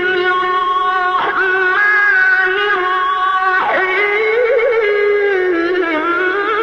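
Melodic Quran recitation: a voice chanting long, held, ornamented notes that glide slowly up and down.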